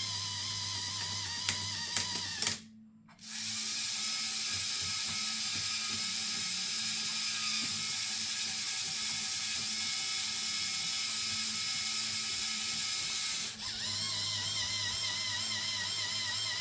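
Lego Technic gondola lift mechanism running: an electric motor whines steadily while plastic gears and cable drive turn with a rattling, ratchet-like clatter. Guitar music plays at the start and returns near the end, with a few sharp clicks and a brief drop-out between.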